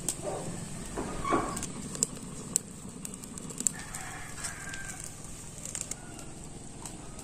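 Chickens calling, with the loudest call about a second in, over a low steady background with a few sharp clicks.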